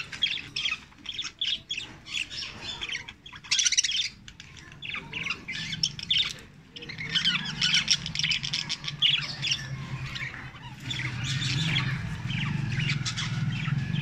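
Budgerigars chattering: a dense, continuous run of quick chirps and squawks. A low steady hum comes in about halfway and grows louder toward the end.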